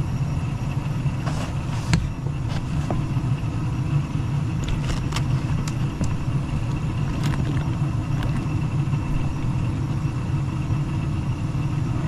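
Gas furnace running, the steady low hum of its inducer (draft) motor, the unit reported as loud. A few light clicks of handling near the motor about a second or two in and around five seconds in.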